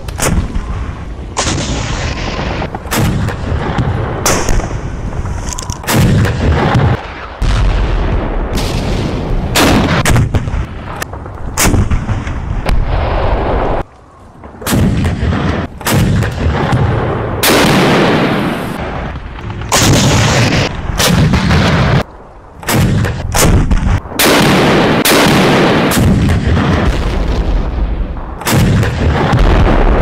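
Artillery fire and shell explosions: heavy booms one after another, every second or two, each trailing off in a rumble, with two brief lulls, one about halfway through and one about two-thirds of the way through.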